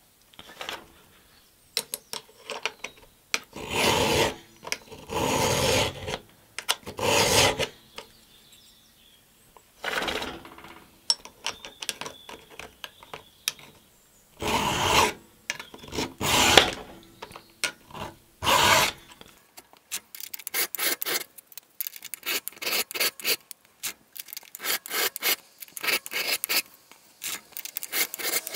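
Flat file rasping on the depth gauges of a Stihl MS 231 C's .325 saw chain, filing them down to the guide. First come a handful of separate, slower strokes with pauses between them, then from about twenty seconds in a quick run of short, rapid strokes.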